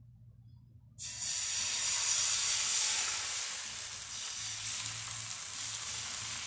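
Thin rice batter for neer dosa poured onto a hot non-stick frying pan, starting to sizzle loudly on contact about a second in. The sizzle peaks soon after and then eases slightly as the batter keeps spreading.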